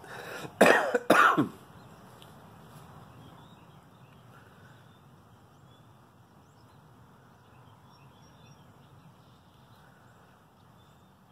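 A man coughs twice, loud and short, about a second in; after that only a faint steady background.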